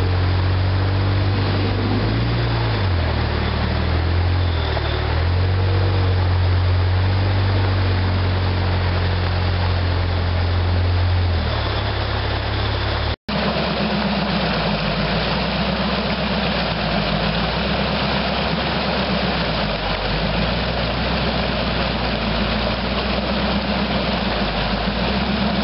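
A rock crawler's engine working at low revs, its pitch rising and falling as it picks its way over the rocks. After a sudden cut about halfway, a second crawler's engine runs more steadily over the rush of creek water.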